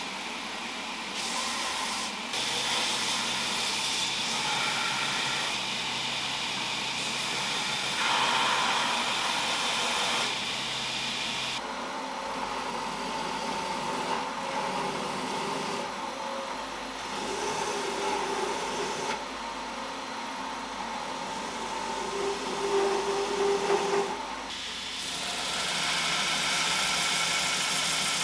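Belt grinder running while a knife handle is sanded against the abrasive belt: a steady motor hum under a rough sanding hiss that changes in strength every few seconds as the piece is pressed on, moved and lifted.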